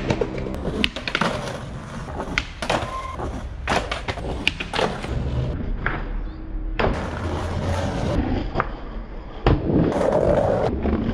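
Skateboard wheels rolling over stone paving, broken by a string of sharp clacks and slaps as the board is popped and lands during tricks.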